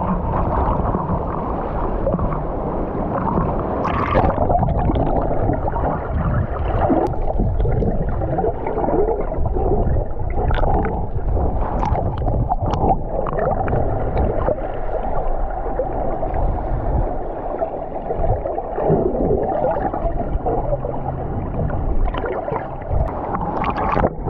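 Muffled rushing water and gurgling, heard with the camera underwater, with a few brief clicks.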